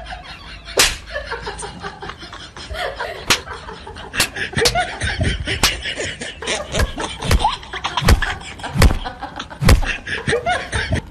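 A series of about ten sharp slap-like smacks, irregularly spaced roughly a second apart.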